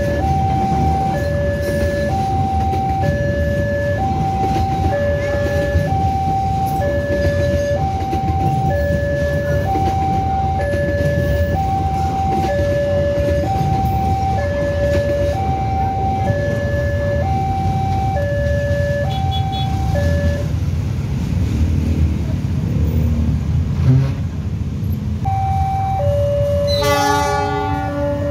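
Railway level-crossing warning alarm alternating between two tones, each held about a second, over the rumble of a passenger train passing. The alarm stops about 20 seconds in as the train clears, then starts again a few seconds later, and a short locomotive horn blast sounds near the end as the next train approaches.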